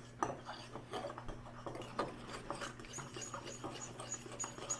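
Homemade slime being stirred in a bowl just after the borax-water activator is added, making a run of quick, irregular, small sticky clicks and pops as it turns goopy.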